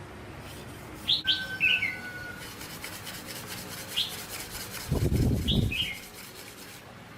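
Bird chirping: a handful of short, high calls that sweep downward, a few seconds apart. A brief low scuffing or rubbing noise comes about five seconds in.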